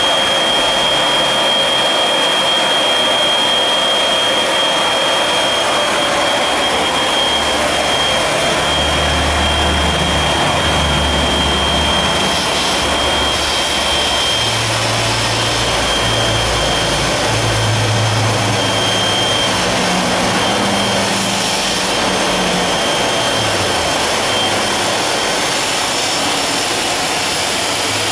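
Cordless electric air inflator running steadily: a rush of air with a steady high whine, pumping up the tube of an inflatable boat.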